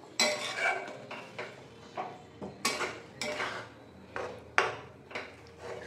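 Slotted spatula stirring a thick, wet curry masala in a metal kadai, scraping and knocking against the pan in repeated strokes about two a second.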